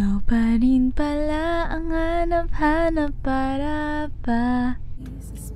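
Background pop song: a woman singing a run of held notes, about six in a row with short breaks, over soft accompaniment; the singing stops about five seconds in.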